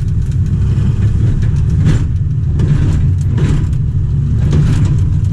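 Diesel engine of a 1995 Mitsubishi MS110 track hoe running steadily, heard from the operator's cab, with scattered short knocks and scrapes over it.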